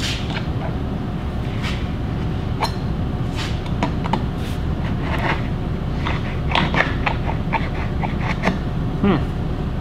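Pliers clicking and scraping on a jigsaw's metal blade clamp as a loose, still-hot blade is worked out of the saw: a run of small irregular ticks, thickest toward the end, over a steady low workshop hum.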